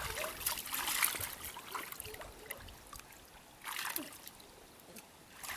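Shallow muddy pond water splashing and sloshing in irregular bursts as people wade and grope for fish by hand, busiest in the first couple of seconds and again briefly about four seconds in. Faint voices underneath.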